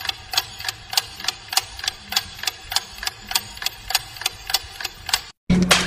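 A rapid run of evenly spaced clicks, about five a second, added as a sound effect over a chat screen. The clicks cut off abruptly near the end, and a louder hissing sound with a low hum starts just after.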